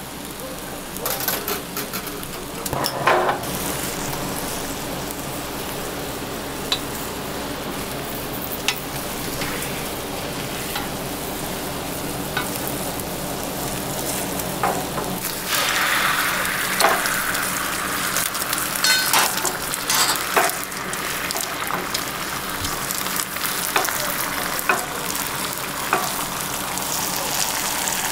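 Egg sizzling in a hot square tamagoyaki pan over a gas flame, with sharp taps of chopsticks and a spatula against the pan now and then. About halfway through, a louder hissing sizzle starts suddenly as fresh egg batter goes into the pan.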